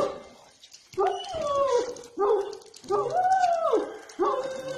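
A very large dog giving a run of about five short, pitched barking-howl calls, each bending up and down in pitch. The longest call, about three seconds in, rises and falls in one arch.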